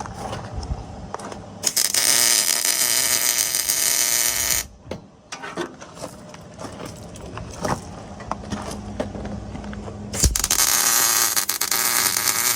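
Arc welder laying two tack welds on a steel roll-cage tube, each a dense crackling hiss lasting about three seconds. The first starts about two seconds in, and the second starts near the end.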